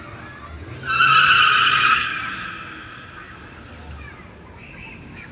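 Car tyres squealing as a car skids on asphalt: a loud, high squeal about a second in that lasts about a second and then fades away, with the car's engine rumbling beneath it.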